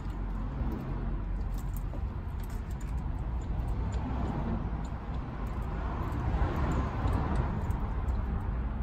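Steady low background rumble with faint, scattered light clinks from hand work on the metal propshaft parts.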